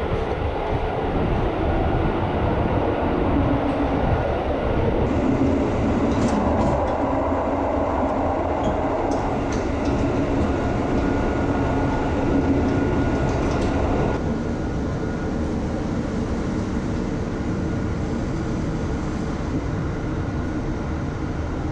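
Interior noise of a KiHa 183 series diesel express railcar: a steady rumble of running gear and diesel engine with a faint steady whine, settling about two-thirds of the way through to a lower, quieter hum.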